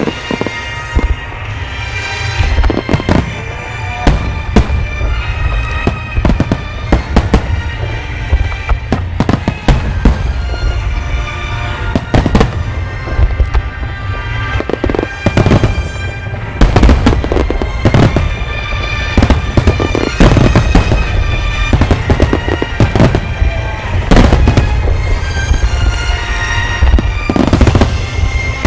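Aerial fireworks shells bursting in a dense, irregular barrage, deep booms mixed with sharp cracks and crackle, with music playing underneath.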